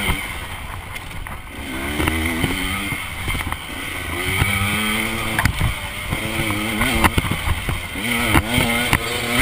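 KTM dirt bike engine revving up and falling back over and over as the throttle is worked. Sharp knocks and rattles are scattered through it.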